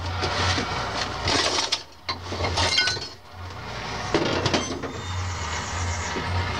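Welding on a car's sheet-metal floor pan: a continuous hiss and crackle with a low hum underneath, dropping away briefly twice near the middle.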